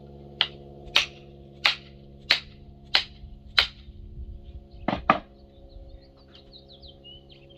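Sharp knocks of blows on a red elm axe haft, driving a small axe head down onto the handle to seat it. Six steady blows about two-thirds of a second apart, then a quick pair a little after five seconds in, over a steady hum.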